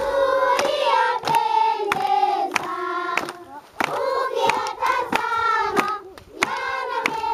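A large group of children singing together while clapping their hands on a steady beat, about one and a half claps a second.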